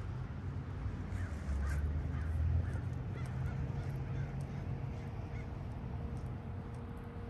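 Crows cawing, a run of short calls in the first half, over the low rumble of street traffic. A faint steady hum comes in about halfway through.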